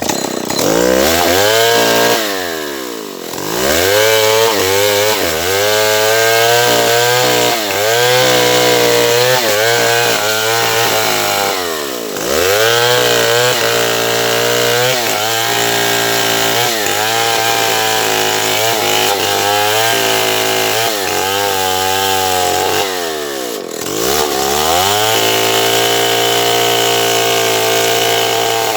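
Stihl 070 two-stroke chainsaw running at high revs, cutting wood. Its engine note drops steeply and climbs back up three times.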